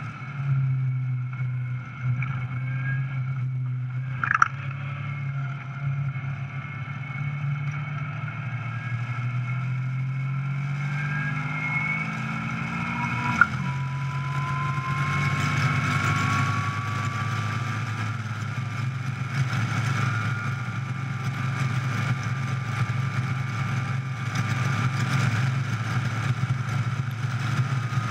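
Caterham Seven 420R's Ford Duratec 2.0-litre four-cylinder engine running under load from the open cockpit, with wind rush that grows in the second half. A sharp click comes about four seconds in and another about thirteen seconds in, where the engine note breaks and then climbs slowly as the car gathers speed.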